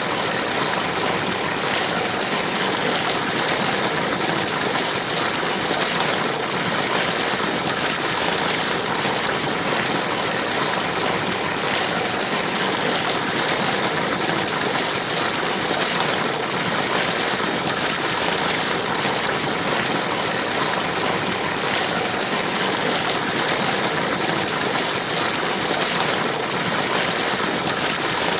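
Flowing river or stream water, a steady, even rushing with no breaks.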